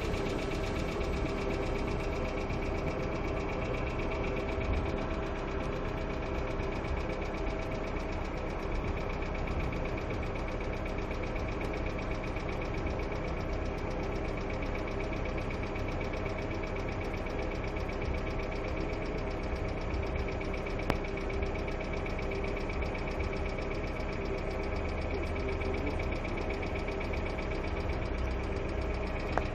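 Hyundai Accent II engine idling steadily with a fast, even ticking over the idle: the hydraulic valve lifters knocking.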